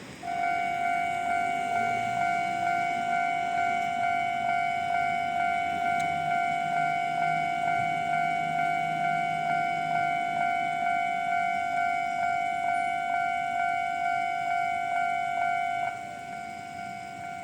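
Japanese railway level-crossing alarm starting up and ringing its standard electronic alarm tone: one steady high ringing note pulsing a little under twice a second. It becomes noticeably quieter near the end.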